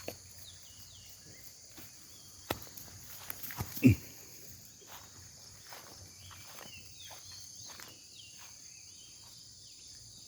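Steady high insect drone with short, high, falling chirps scattered through it. A few sharp clicks and one louder thump about four seconds in, from handling close to the microphone.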